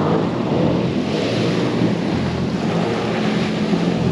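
Jet ski engine running steadily under way, with water rushing past the hull and wind buffeting the microphone; the rush of spray swells about a second in.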